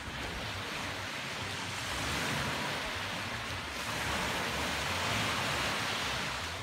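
Small sea waves washing onto the sand, a steady rushing that swells about two seconds in and again near the end, with some wind rumbling on the microphone.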